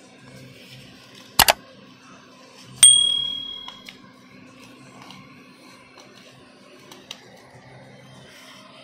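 Two quick sharp knocks, then a single metallic ding that rings on as a clear high tone for about a second, over a low steady hum.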